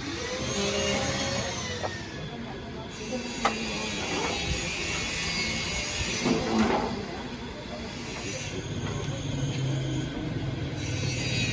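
Street traffic noise with passing vehicles and an engine hum, and a louder short pitched sound about six and a half seconds in.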